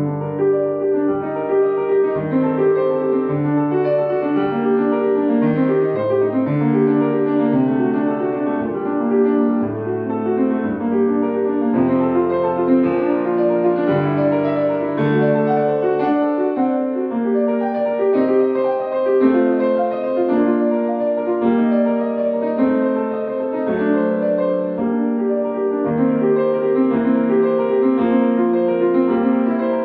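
Grand piano played solo: a continuous stream of quick notes over lower notes that change about once a second.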